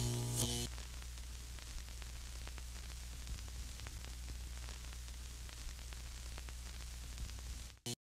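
A held musical chord stops about half a second in, leaving a steady low hum with faint static hiss and scattered small crackles, which cuts off abruptly just before the end.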